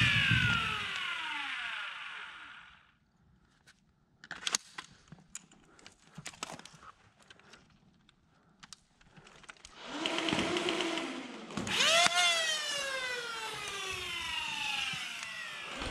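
Flywheel foam blaster motors whirring down in falling pitch. After a stretch of faint clicks and knocks, they spin up again about ten seconds in, rev sharply just before twelve seconds, then wind down slowly.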